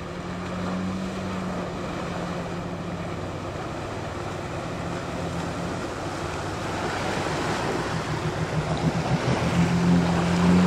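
Nissan Frontier pickup driving through a flooded trail: its engine runs steadily while water sloshes and splashes around the tyres. The splashing gets louder and surges in waves as the truck comes close near the end.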